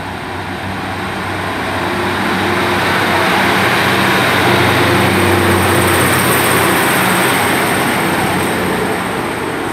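Class 150 Sprinter diesel multiple unit pulling away from the platform. Its underfloor diesel engines run under power with a steady low drone, growing louder to a peak about halfway through and then easing off as it moves away.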